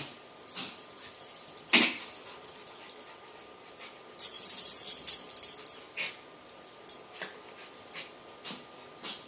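Two dogs playing, with scattered short sharp sounds and whimpers. The loudest is a sharp yip about two seconds in, and a stretch of scratchy, hissing noise comes around the middle.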